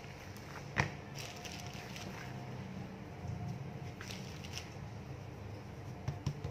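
Hands patting and pressing a slab of chilled laminated pastry dough on a silicone baking mat, making soft handling noises. There is a sharper tap about a second in and a few light taps near the end, over a low steady hum.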